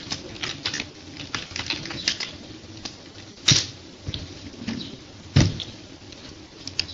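Computer keyboard typing: a run of quick key clicks, with two louder clicks about three and a half and five and a half seconds in.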